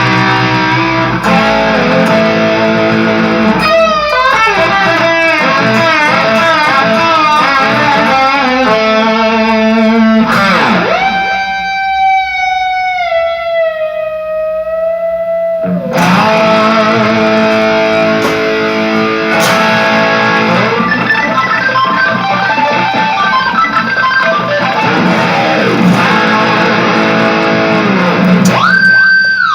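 Instrumental guitar music: plucked melodic lines, with a long held note that slides down in pitch in the middle and a sustained note near the end.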